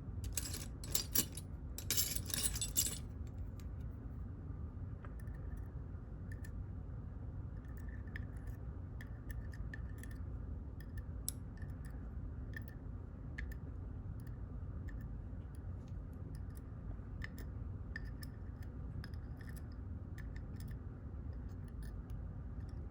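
Small metal lock pins and parts clinking and rattling as they are handled and set down, with two louder clusters of jingling in the first three seconds, then scattered faint ticks.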